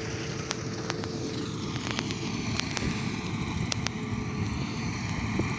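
Motor grader's diesel engine running steadily as the machine works the dirt road bed.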